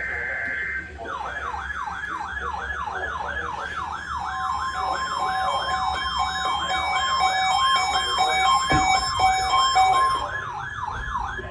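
Electronic siren in rapid yelp mode, its pitch sweeping up and down about three times a second. It starts about a second in, steady beeping tones join beneath it about four seconds in, and it cuts off near the end.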